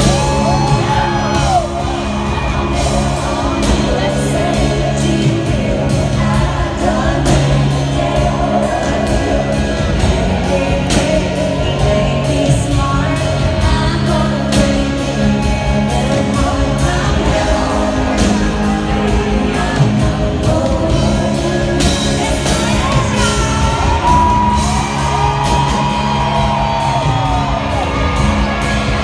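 Live country band with women singing lead and harmony into microphones, loud and steady, with long held sung notes near the start and again near the end. Crowd whoops and shouts mix in.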